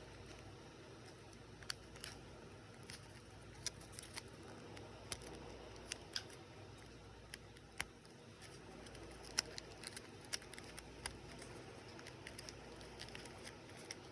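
Faint, scattered small clicks and light taps of tiny plastic miniature pieces and their packaging being handled, irregular and a second or so apart, over a low steady hum.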